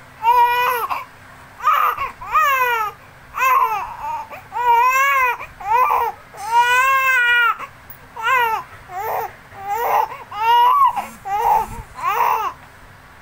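Baby vocalizing in a string of about a dozen short, high-pitched squealing calls, each rising and falling in pitch, the longest held for about a second and a half a little past the middle.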